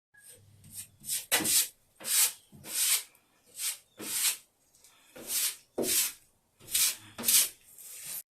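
A series of short rasping, rubbing strokes, about one or two a second and unevenly spaced, like something rough being scraped or brushed across a surface.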